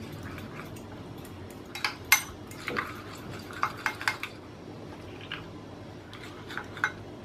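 Metal spoon stirring a thin batter of flour and water in a glass bowl, clinking against the glass in irregular light taps. The taps come thickest from about two to four seconds in, then grow sparse.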